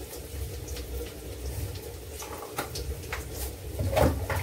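Small steel kitchen containers being handled, with a string of light clinks and clicks as lids and tins knock together, over a steady low hum.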